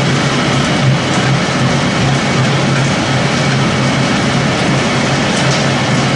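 Pellet making machine running: a loud, steady mechanical noise with a continuous low hum.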